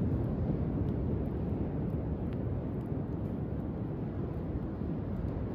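Steady low rumble of waves breaking on the beach, mixed with wind, and a few faint crackles from a driftwood bonfire.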